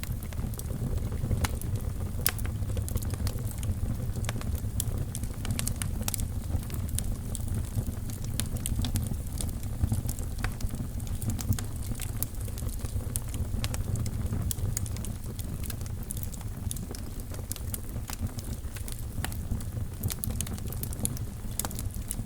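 Wood fire burning in a fireplace: a steady low rumble of flames with frequent irregular crackles and sharp pops.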